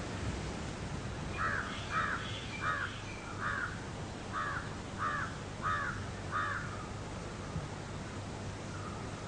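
A crow cawing, a run of about eight caws that stops about two-thirds of the way through, over a steady low hiss.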